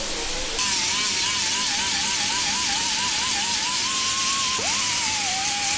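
A small right-angle disc sander cutting into a carbon-fibre bike frame, grinding away paint and delaminated carbon around a crack. It makes a steady hiss with a whine whose pitch wavers up and down as the disc is worked over the tube, and briefly jumps up in pitch near the end.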